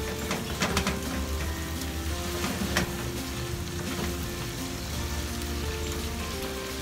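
Ground pork sizzling as it is stir-fried over high heat in a frying pan. A wooden spatula scrapes and knocks against the pan a few times, most sharply about a second in and again near three seconds.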